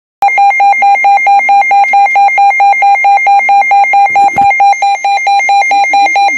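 Midland WR-120 weather radio's built-in alert alarm: a loud, even train of rapid electronic beeps. It is the radio's alarm for a received SAME-coded weather warning, here a snowfall warning.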